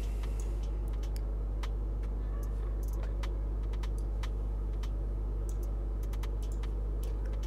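Scattered, irregular clicks of a computer keyboard and mouse being worked, over a steady low hum.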